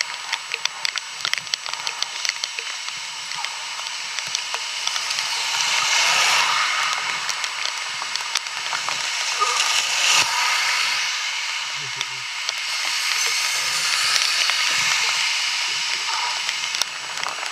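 Steady hiss of heavy rain, with many sharp clicks of raindrops hitting the microphone.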